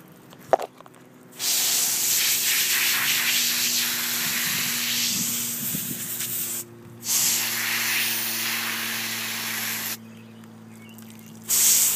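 Garden hose pistol-grip spray nozzle spraying water onto a horse's coat, a steady hiss that starts about a second and a half in, breaks off for a moment near the middle, stops again about ten seconds in and comes back near the end.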